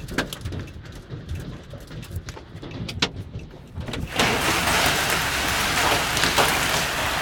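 Hailstones striking a car, heard from inside: scattered sharp knocks at first, then about four seconds in a sudden, much louder dense clatter of hail and rain.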